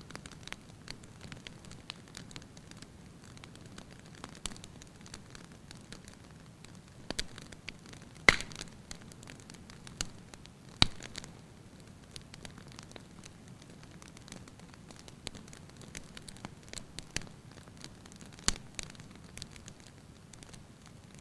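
Wood fire burning in a fireplace: a low steady hiss with scattered crackles and a few sharp pops, the loudest about eight seconds in and about eleven seconds in.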